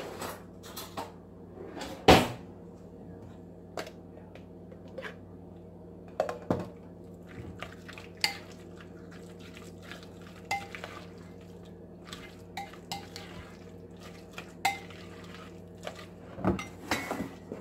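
Metal spoon stirring and scraping through chicken salad in a ceramic bowl, clinking against the bowl at irregular intervals, with a louder knock about two seconds in. A steady low hum lies underneath.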